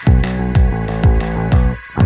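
Electronic background music with a heavy, regular kick-drum beat, sharp percussion hits and a sustained deep synth bass.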